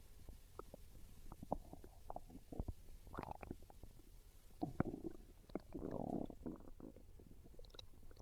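A hungry human stomach growling and gurgling, with many quick pops and bubbling. Longer gurgles come about three seconds in and again around six seconds.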